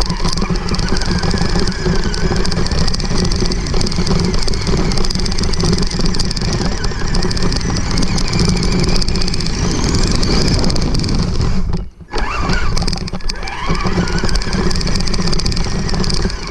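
Traxxas 1/16 Summit RC truck driving through long grass, heard close from a camera mounted on the truck: a dense, constant rush of drivetrain and grass noise with the electric motor's whine rising in pitch now and then as the throttle comes on. The sound drops out briefly about twelve seconds in, then picks up again.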